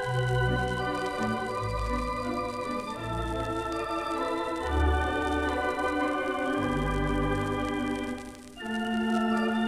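Standaart theatre pipe organ playing sustained chords over a pulsing bass line, from an early-1930s 78 rpm record. The music breaks off briefly about eight and a half seconds in, then a new chord enters.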